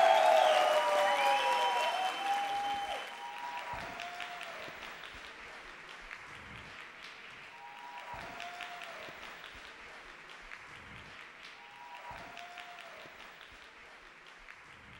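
Studio audience applauding and cheering, loudest at the start and fading steadily away. A faint short melodic phrase recurs about every four seconds underneath.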